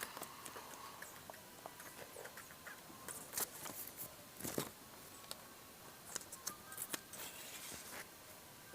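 Faint, scattered small taps, clicks and rustles of hands working Play-Doh modelling clay.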